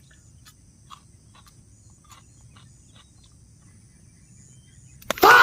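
Faint, steady high-pitched insect drone with a few soft clicks. About five seconds in, a much louder sound with several pitches starts abruptly.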